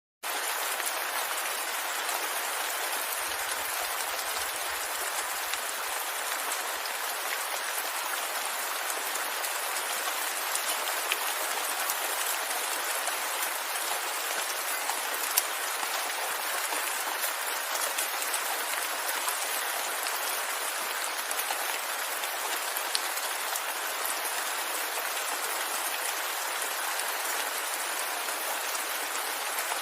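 Steady rain: an even hiss of falling rain with scattered individual drop ticks. It cuts in abruptly right at the start after a brief silence.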